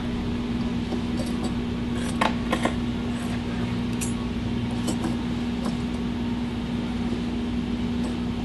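Small steel differential parts and coil springs clicking and clinking lightly as they are handled on a wooden workbench, a few faint clinks two to five seconds in, over a steady hum.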